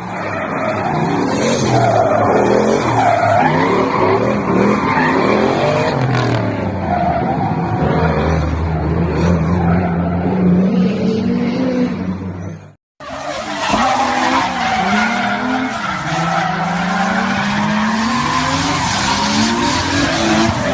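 Car engines revving hard, rising and falling in pitch, with tyres squealing as cars drift. The sound cuts off briefly about two-thirds of the way through and a second drifting car takes over.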